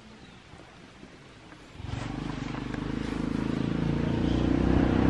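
A motorbike engine running, heard from about two seconds in and growing steadily louder as it comes closer.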